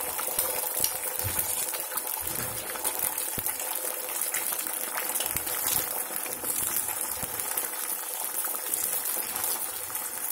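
Beaten eggs sizzling in hot oil in an aluminium kadai on a high flame: a steady hiss with small crackles. A spatula pushes and scrapes the setting egg in the second half.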